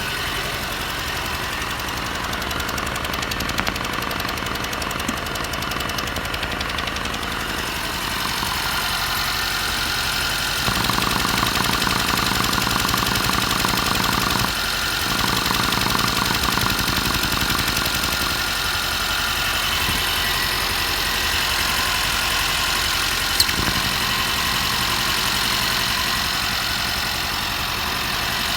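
Mercedes M274 turbocharged four-cylinder petrol engine idling unevenly, misfiring on cylinder 3, which has low compression. About a third of the way in it runs louder for several seconds, with a brief drop in the middle. A single sharp click comes near the end.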